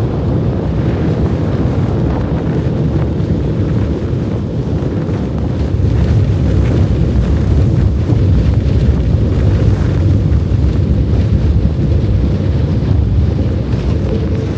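Strong blizzard wind blowing across the microphone: a loud, steady, deep rumble that grows a little louder about six seconds in.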